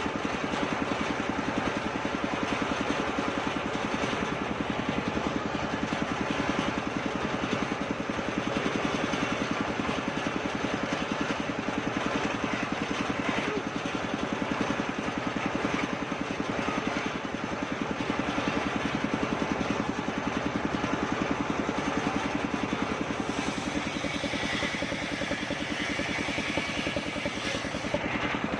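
Motor-driven circular sawing machine running steadily with a fast, pulsing drone. From about 23 seconds in a brighter hiss joins for about five seconds, as the blade cuts kapok wood.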